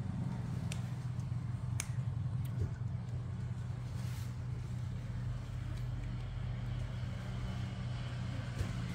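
Steady low mechanical hum, with a few sharp clicks in the first three seconds.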